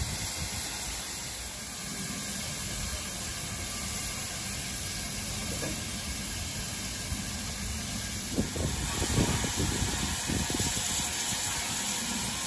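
Steady hiss of steam escaping from a standing steam locomotive, with a few low knocks about eight to ten seconds in.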